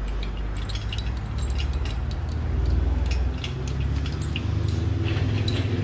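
Engine crane's steel lifting chain clinking and rattling in scattered light clicks as it is handled and unhooked from the lifting sling, over a steady low hum.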